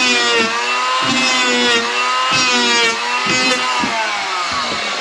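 Small electric hand planer shaving oversized glued-in oak frame timber back flush. The motor whines loudly, its pitch sagging and recovering again and again as the blades bite into the wood.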